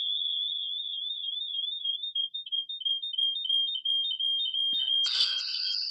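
Audio feedback squeal from a phone and a computer joined to the same Zoom call, each picking up the other's sound: a loud, steady, high whistle that starts to warble in pitch about two seconds in, then jumps higher with a burst of noise near the end.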